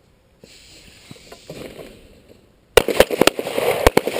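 A line of several handguns firing a rapid, overlapping string of shots that starts almost three seconds in. This is the two-round standing barricade string of a firearms qualification course.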